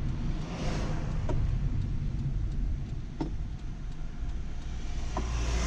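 Inside a moving car's cabin: steady low engine and tyre rumble with road hiss, and a few faint clicks about two seconds apart.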